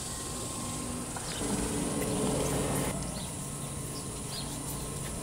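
Outdoor background noise: a low steady hum that swells for a second or so in the middle, with a few faint short chirps.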